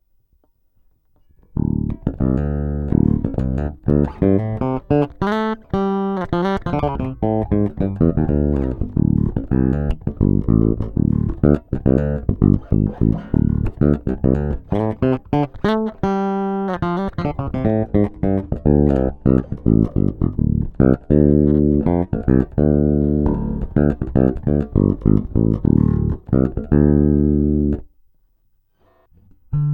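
Six-string Ibanez SR-3006E electric bass through a Bartolini NTBT-918 preamp, recorded direct with no effects, playing a long run of quick plucked notes. The playing starts about a second and a half in and stops a couple of seconds before the end, with a new phrase just beginning as it closes.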